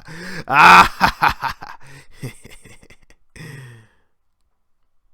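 A man's voice making loud wordless groaning and straining sounds, strongest about a second in and fading out before the four-second mark.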